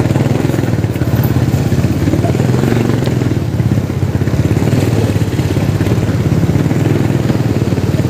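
Motorcycle engine running steadily at low speed in slow street traffic, heard on board the rider's own bike as an even low hum.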